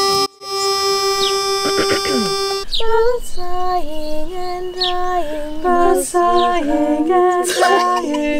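A pitch pipe sounds one long note to give the key, then about three seconds in four women's voices start singing together in close a cappella barbershop harmony, moving through held chords.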